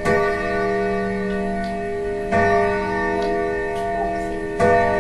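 Grandfather clock gonging while being wound with the crank: three strikes about two and a half seconds apart, each ringing on into the next.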